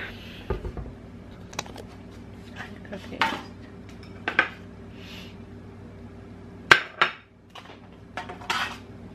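Dishes and cutlery clinking and knocking as a kitchen is tidied up: scattered clinks, with two sharper knocks close together about seven seconds in.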